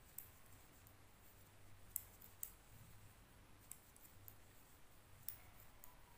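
Faint, irregular clicks of knitting needles tapping together as a row of purl stitches is worked by hand, the sharpest about two seconds in.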